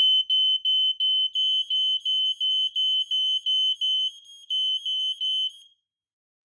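Aico Ei smoke alarm sounding on test: a loud, single high-pitched tone beeping about three times a second, with a brief break a little after four seconds, then stopping near the end. The test press also sends a signal over the RadioLink base to the other alarm.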